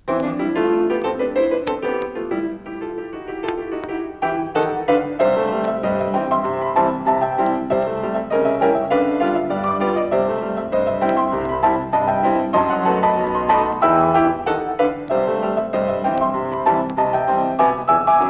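Piano music, a busy run of notes that cuts in suddenly out of near silence.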